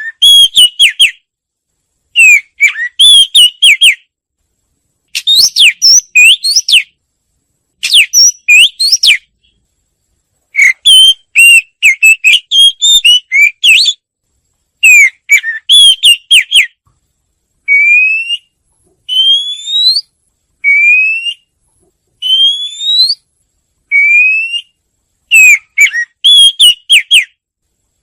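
Wagtail song: loud phrases of rapid chirping notes, each a second or two long with short pauses between. About two-thirds of the way in it switches to single rising whistled notes about a second apart, then the chirping phrases return near the end.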